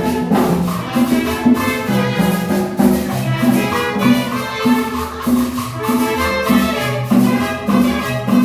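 Upbeat Latin dance music, salsa-style, with a steady beat, bass line and shaker percussion.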